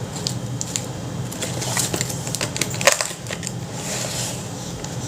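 Small plastic pots and packaging of a foam-clay kit being handled: a run of light clicks and knocks with crinkling rustles, one sharper click about three seconds in.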